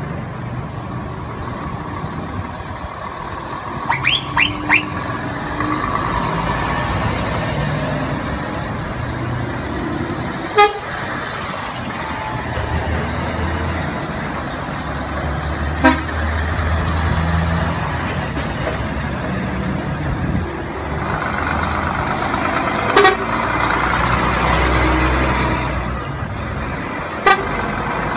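Heavy Scania and Volvo trucks drive past one after another, their diesel engines rumbling and swelling as each one goes by. About four seconds in there are three quick horn toots, and a few single short, sharp blasts come later.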